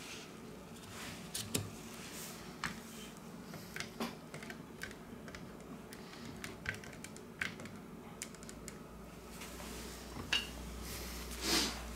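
Light, irregular clicks and taps of small phone parts and the opened handset being handled on a work surface, over a steady low hum.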